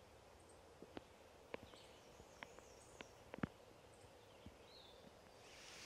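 Near silence: quiet forest ambience with a few sparse light ticks and faint high chirps, and a soft hiss building near the end.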